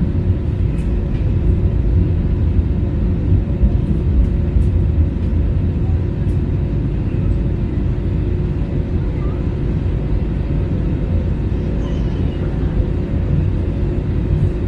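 Airbus A320 jet engines and rushing air heard inside the cabin as a steady, loud low rumble with a constant hum over it, during the climb after takeoff.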